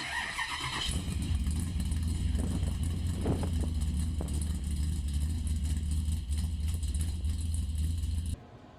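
An engine running steadily with a deep, even rumble, which cuts off abruptly near the end. A wavering high-pitched sound rides over it in the first second.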